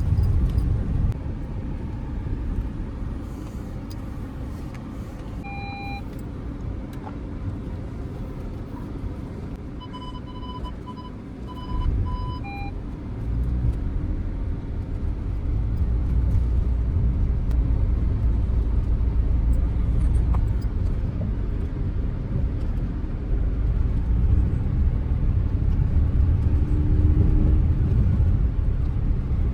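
Low rumble of an Audi Q5 on the move, with a short electronic chime about six seconds in and a quick string of beeps a few seconds later, like the car's warning or sensor beeps. After the beeps the rumble grows louder and stays strong.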